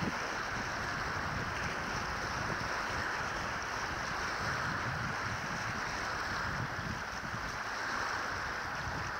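Wind buffeting the microphone in uneven low rumbles over a steady wash of choppy water.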